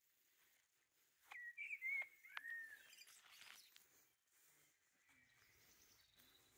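A songbird singing a short phrase of clear whistled notes about a second in, followed by fainter chirps.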